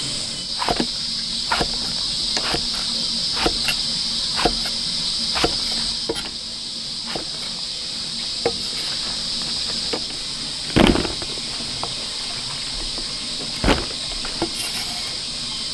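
Kitchen knife chopping eggplant on a wooden chopping block, sharp knocks about once a second, then sparser, with two heavier thuds later on. A steady high insect drone runs underneath.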